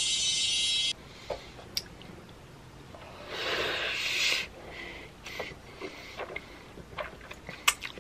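A bright, high steady tone cuts off about a second in. Then instant black-bean noodles (Jjapaghetti) are slurped in one noisy pull lasting about a second, followed by scattered soft chewing and mouth clicks.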